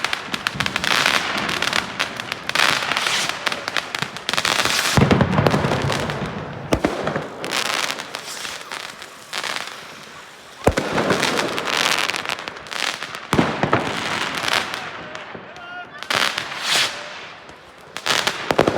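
Fireworks going off: repeated bangs and long stretches of crackling, with a couple of sharp single reports in the second half.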